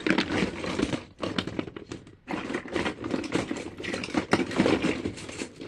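Small plastic fidget toys clattering and clicking against each other as they are rummaged through in a drawer, a fast run of light clicks with two short pauses.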